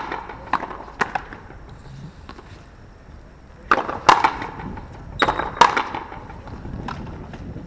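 Frontenis rally: the hard rubber ball is struck by rackets and smacks against the frontón wall. The sharp cracks mostly come in pairs about half a second apart, a few times, with fainter knocks between.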